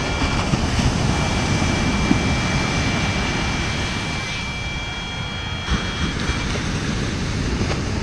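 Surf breaking and wind buffeting the microphone, a steady low rush. A thin, steady high electronic tone sounds over it, drops out briefly near the start, and cuts off about six seconds in.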